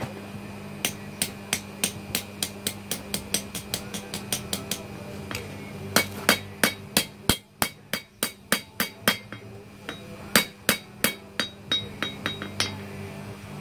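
Hand hammer striking red-hot knife steel on an anvil to bend the handle end: a run of sharp blows about three a second, a short pause about five seconds in, then a second run in which the anvil rings after the blows.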